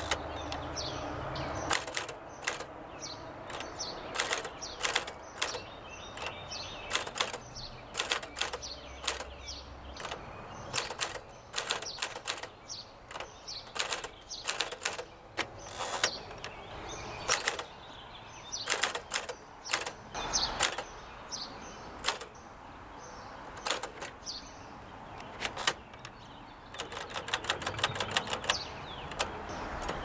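1953 Smith Corona Sterling manual typewriter being typed on: irregular sharp strikes of the typebars on the platen, key after key. Near the end comes a fast, even run of clicks.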